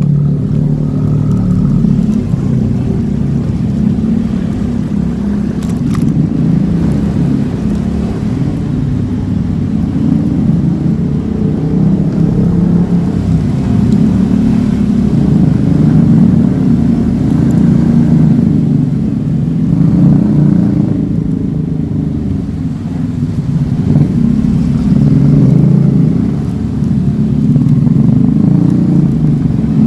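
Motorcycle engine and road noise while riding, a steady low rumble that swells and eases as the speed changes.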